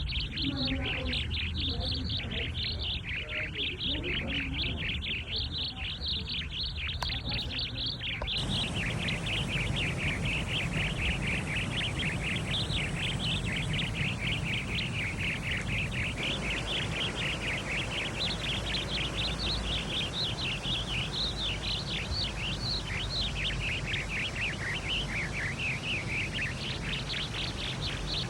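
Birds chirping and singing in a dense, unbroken chorus of rapid high notes over a steady low background hum.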